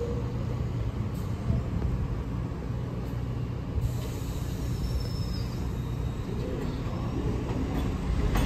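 Steady low rumble of a New York City Subway 1 train on the elevated tracks, with a brief faint high squeal about five seconds in.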